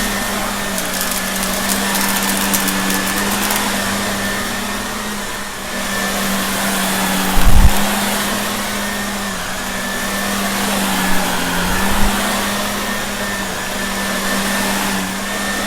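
Shark vacuum cleaner running steadily with a constant motor hum and a faint high whine, crackling in the first few seconds as debris from a test mess is sucked up. Two short low thumps, about halfway and about three-quarters through.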